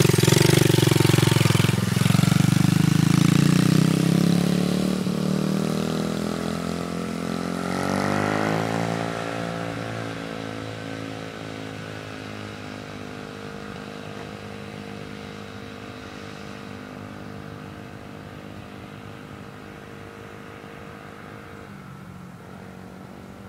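Small 70cc Dirt Runner dirt bike engine revving as the bike pulls away, climbing in pitch again about eight seconds in, then running at a steady pitch as it fades into the distance.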